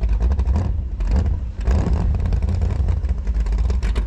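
Wind buffeting the microphone in a heavy, uneven low rumble, mixed with a speedboat's engine running out on the reservoir.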